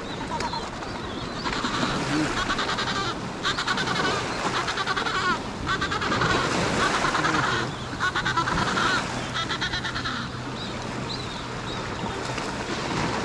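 Adelie penguins calling: about four bouts of rapid, pulsing, braying calls between about 1.5 and 10 seconds in, with water lapping on the shore and a steady low hum underneath.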